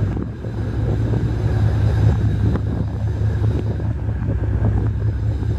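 Multi Purpose Attack Craft's engines running steadily as the boat pulls away under way, a low hum, with wind buffeting the microphone.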